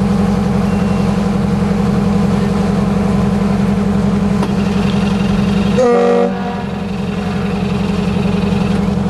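Motor yacht's engines running at low cruising speed as the boat passes close by: a steady, evenly pulsing low drone. About six seconds in, a brief higher tone sounds over it.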